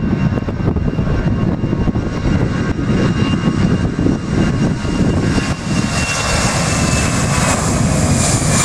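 Aircraft engines at takeoff power as a plane departs: a loud low rumble under a steady high whine, with a brighter hiss building in the second half. Gusty wind buffeting the microphone adds to the rumble.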